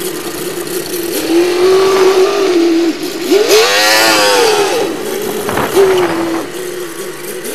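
Monster truck's engine running at a steady, fairly high pitch, swelling up and back down in pitch and loudness about halfway through as the truck drives close past.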